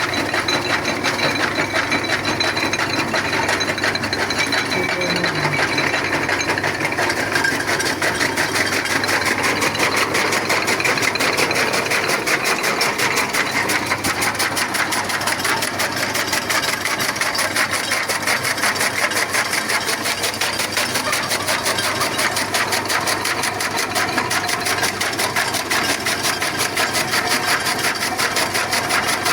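A machine running steadily with a fast, even beat of several pulses a second.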